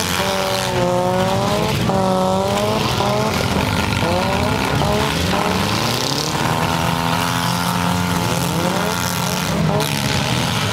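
Several front-wheel-drive demolition derby cars' engines revving hard at once, their pitch rising and falling over one another as the cars push and grind together.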